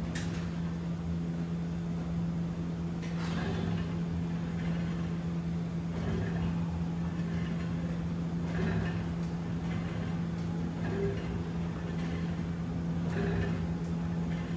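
Freemotion dual cable crossover machine working through slow chest-fly reps: a soft swish of the cables running over the pulleys every few seconds, over a steady low hum.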